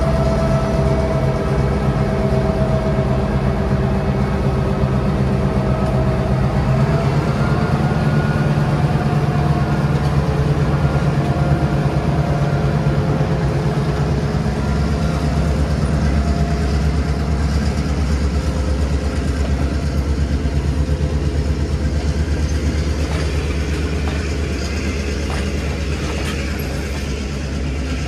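Diesel locomotive engine running steadily with a deep hum, a higher whine fading out about seven seconds in.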